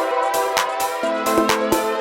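Electronic background music: sustained synth chords over a regular percussive beat.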